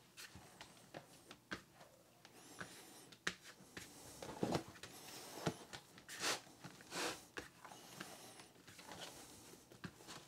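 Hands kneading sticky whole-wheat bread dough on a pastry mat. Faint, irregular pats, rubs and short sticky peeling rustles come as the dough is pressed, folded and pulled off the mat.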